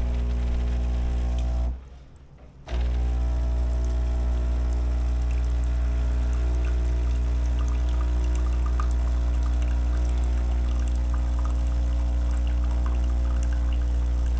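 Ultima Cosa Presto Bollente espresso machine's pump running with a steady hum as it flushes hot water through the group head to preheat it. The pump stops about two seconds in and starts again a second later.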